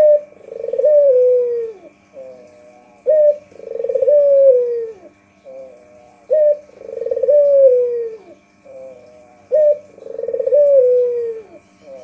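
White ringneck dove (puter putih) cooing: four repeated coo phrases about three seconds apart, each a short rising note followed by a long coo that falls in pitch. A faint steady hum lies underneath.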